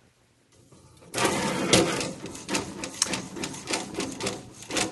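Coffee latte art printer starting a print. After about a second of quiet, its print carriage begins shuttling over the cup with a busy run of mechanical clicking and rattling.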